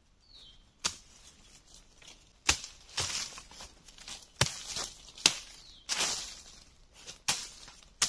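Machete chopping through brush and twigs in irregular sharp strikes, about eight in all, with dry leaf litter rustling between them.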